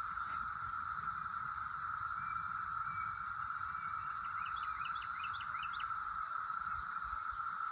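Steady high drone of insects in the field, with a bird giving a quick run of short rising chirps about four to six seconds in, over a low rumble of wind on the microphone.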